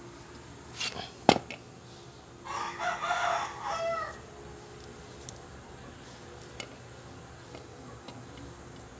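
A rooster crows once, a call of about a second and a half. Just before it come two sharp clicks of parts being handled.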